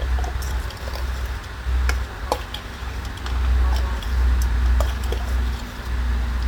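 A steady low outdoor rumble with scattered light clicks and taps.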